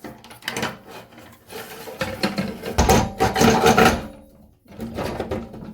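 Kitchen faucet's supply hoses scraping and rubbing as they are pushed down through the sink's mounting hole, with small knocks. The busiest, loudest stretch of scraping comes about three seconds in.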